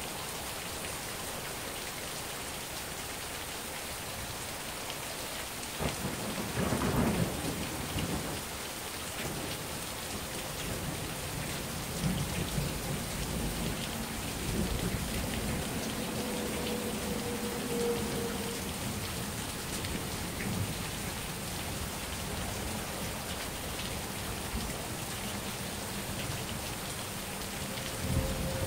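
Heavy rain falling steadily throughout. A peal of thunder breaks about six seconds in and rumbles on, swelling and fading, for many seconds. Another rumble of thunder begins near the end.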